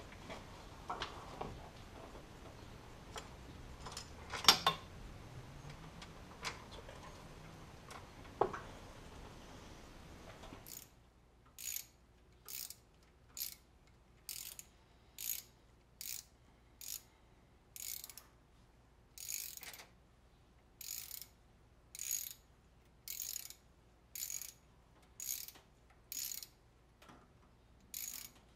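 Ratchet wrench turning bolts at the front of a 5.7 Hemi engine block, worked in short strokes. From about eleven seconds in, each return stroke gives a brief burst of pawl clicks, about one a second. Before that there are a few light metal clinks and one louder knock.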